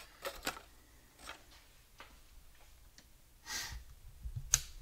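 Faint handling noise as a hand fiddles with the hanging metal tags and the camera: a few light clicks and rustles, with a sharper click near the end.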